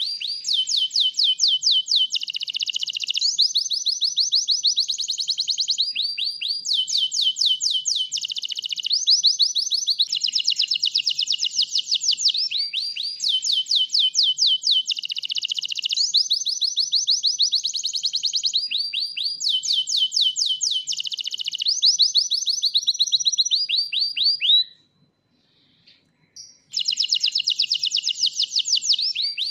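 White domestic canary singing a long, loud song of fast trills, each a rapid series of repeated notes, shifting from one trill to the next. The song breaks off for about two seconds near the end, then starts again.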